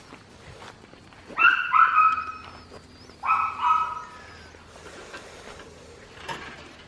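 An animal's high-pitched, steady-toned cries: two double calls, the second about two seconds after the first.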